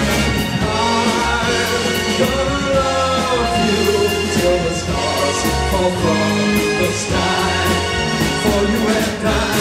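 Live rock band playing an instrumental passage: drums, bass guitar, electric guitar and keyboards under a bending lead melody line.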